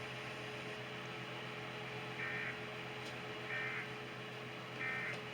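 Emergency Alert System end-of-message data bursts: three short, identical warbling blips about a second and a quarter apart, signalling the end of the alert message. They are faint over a steady electrical hum and hiss.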